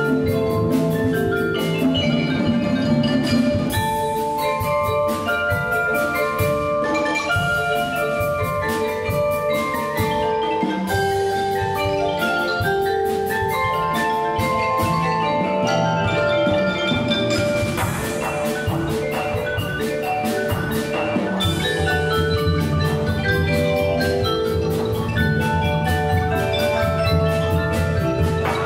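Percussion ensemble playing, led by marimbas and vibraphones in a busy run of quick mallet notes, with drums underneath. The low end, drums and lower bars, grows fuller about three-quarters of the way through.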